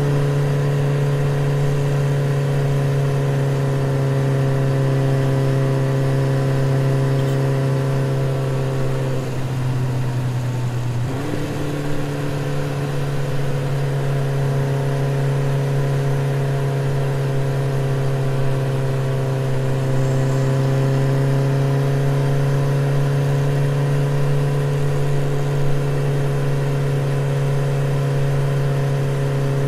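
Yamaha NMAX scooter's engine and exhaust droning at a steady cruising speed. The pitch sags for a couple of seconds about nine seconds in, as the throttle eases, then picks back up and holds steady again.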